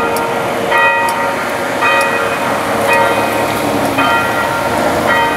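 A bell struck again and again, about once a second, each stroke ringing with several clear tones that fade before the next.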